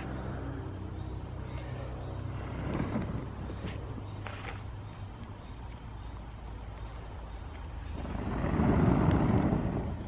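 A person blowing into a smouldering bundle of cedar bark tinder to coax it into flame: a short puff about three seconds in and a longer, louder blow near the end. A low steady hum runs underneath.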